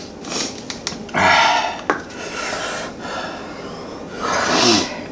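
A person blowing hard, hissing breaths in and out through the mouth, about four in a row with the second the loudest, to cope with the burn of a ghost-pepper hot sauce.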